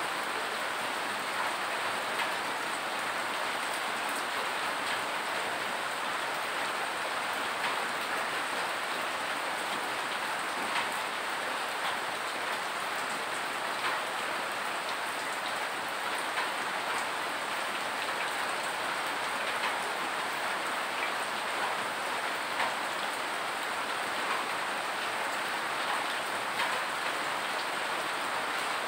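Steady rain falling, an even hiss, with scattered sharper drop strikes standing out now and then.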